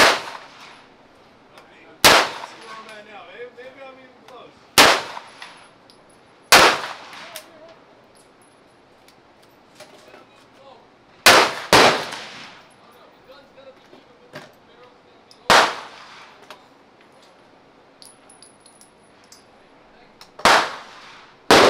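MP5 fired in slow single shots, about nine sharp reports a second or several seconds apart, two of them in quick succession about halfway through.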